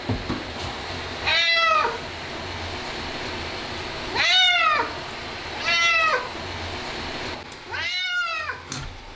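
Ragdoll cat meowing loudly four times, each long cry rising and then falling in pitch. These are the protest cries of a cat that hates being bathed.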